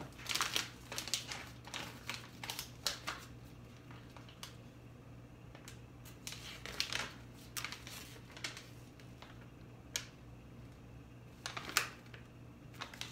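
A folded paper instruction leaflet being handled and unfolded, crackling and rustling in irregular short runs, the loudest near the end.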